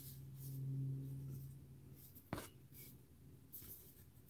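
Plastic laptop bottom cover being handled: faint rustling and one sharp click a little over two seconds in. Under it, a low steady hum lasts about two seconds and then stops.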